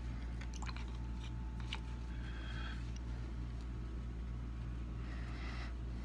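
Steady low hum with a few faint clicks and two soft swishes, about two seconds in and again near five seconds, from a small paintbrush stroking ink wash onto paper.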